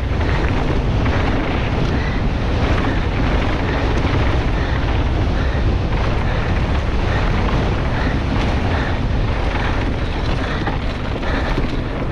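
Heavy wind rush on the microphone of a downhill mountain bike at race speed, mixed with the tyres running over loose gravel and dirt.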